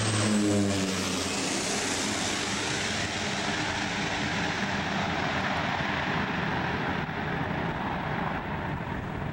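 Twin Otter floatplane water bomber passing low overhead: the drone of its engines and propellers drops in pitch as it goes by in the first second or so, then settles into a steady noise that slowly fades as the plane flies off over the lake.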